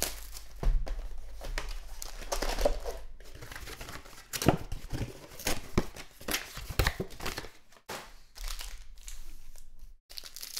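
Plastic-wrapped Panini Contenders Basketball card packs and their box being handled: packs pulled out of the box and stacked, with irregular sharp crinkling and rustling of the wrappers.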